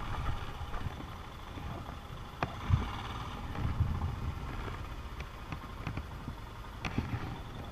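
Royal Enfield Himalayan's single-cylinder engine running at low speed on a rough dirt trail, a low uneven rumble with a few sharp knocks as the bike jolts over the ground.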